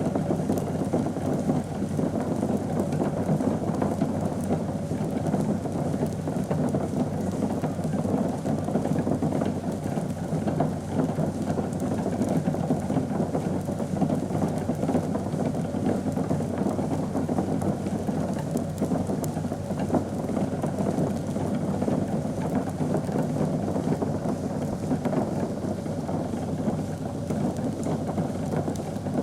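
Liquid bubbling steadily at a boil, a dense, even churn of many small pops.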